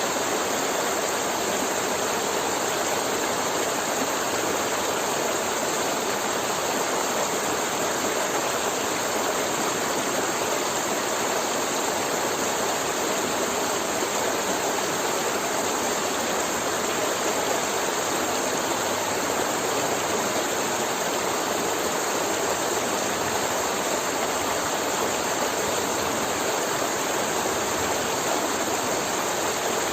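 River water flowing in a steady, even rush, with no breaks or changes.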